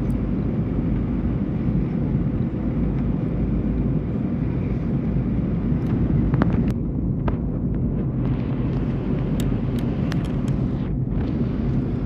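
Airliner cabin noise in flight: a steady low drone of engines and airflow, with a few faint clicks in the second half.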